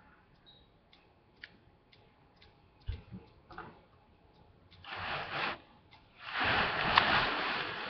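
Faint regular ticking, about two ticks a second. A knock comes about three seconds in, then two spells of rustling handling noise; the second, near the end, is longer and louder.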